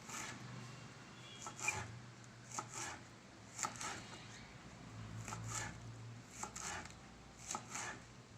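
Hummingbird tree (agathi) flowers being cut up by hand: a series of soft, irregular cutting sounds, often two in quick succession.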